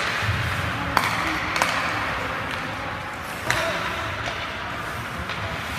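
Ice hockey game play: a steady scraping hiss of skates on the ice, with sharp clacks of stick and puck about a second in, again half a second later, and once more midway through.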